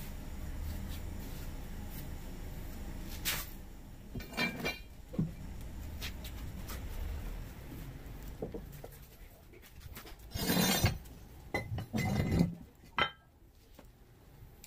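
Metal 20 lb weight plates clinking and scraping as they are slid onto a barbell bar and knocked together. A few separate clanks, some with a short ring, with the loudest about two-thirds of the way in.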